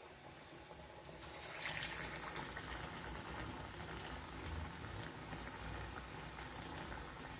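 Bajra-sesame tikkis deep-frying in hot oil: a steady sizzle and bubbling with scattered small pops, swelling about a second and a half in.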